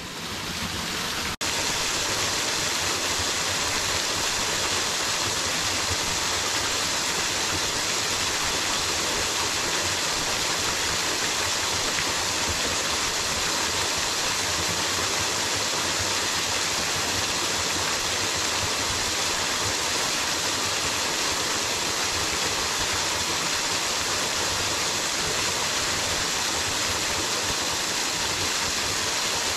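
Running water, a steady even rush that sets in sharply about a second and a half in and holds without change.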